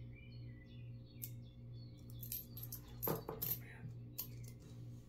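Pennies clicking and clinking against each other and on a hard surface as they are handled and sorted, a short cluster of clicks a little past halfway, over a steady low hum.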